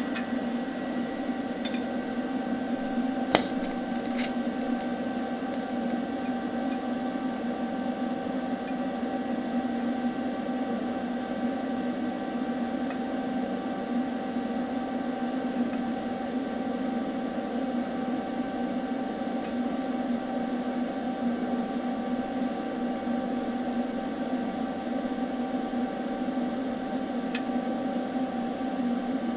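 TIG welding arc on thin mild steel, a steady electric hum and hiss held without a break. A few sharp clicks come in the first few seconds as the arc is struck.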